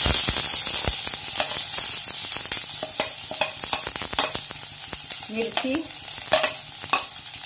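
Chopped onion frying in hot tempering oil in a stainless steel kadhai: a loud sizzle that flares as the onion goes in and slowly dies down. Short clicks and scrapes of a spoon stirring against the pan run through it.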